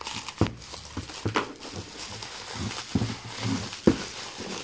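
Clear plastic stretch wrap crinkling and rustling as it is pulled and torn off by hand, with several sharp knocks of the wrapped metal press parts against the wooden table, the loudest nearly four seconds in.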